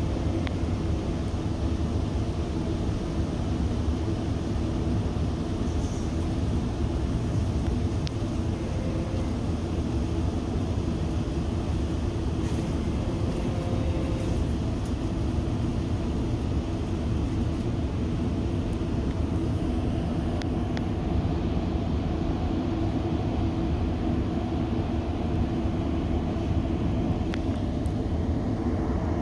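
Metrolink commuter train in motion, heard from on board: a steady low rumble with a few faint clicks.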